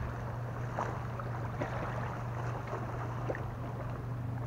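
Small choppy waves lapping and splashing against a weathered wooden bulkhead, over a steady low hum.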